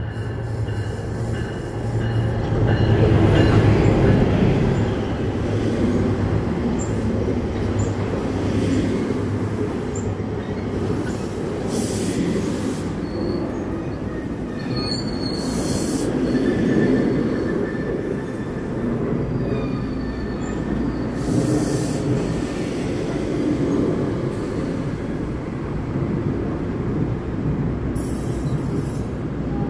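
NJ Transit Comet IV passenger coaches rolling into a station close by, with a continuous rumble of wheels on rail that swells about three seconds in. Thin, high wheel and brake squeals come and go several times as the train slows to stop.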